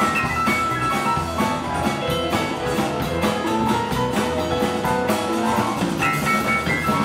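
Live band playing: acoustic guitars over a drum kit keeping a steady beat.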